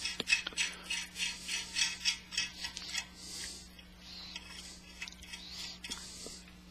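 Small metal clicks as a 5/16-inch jam nut is spun by hand onto the threaded steel end of a control cable: a quick run of about five clicks a second for the first three seconds, then fainter scraping as the nut is worked further on.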